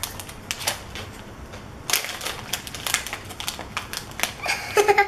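Freeze-dried Charleston Chew candy and its wrapper being handled by hand: a run of irregular, crisp crackles and clicks.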